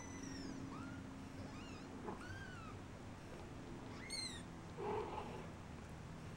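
Tiny Persian kittens, about two weeks old, mewing: about five short, high, thin mews, each rising and falling in pitch, the clearest about four seconds in.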